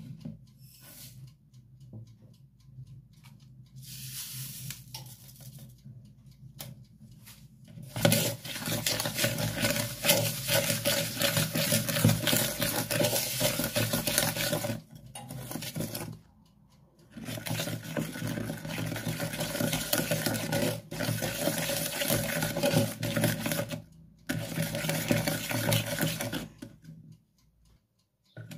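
Wooden spoon beating egg yolks with sugar in a plastic bowl: fast, rhythmic scraping that starts about eight seconds in and comes in three spells separated by short pauses.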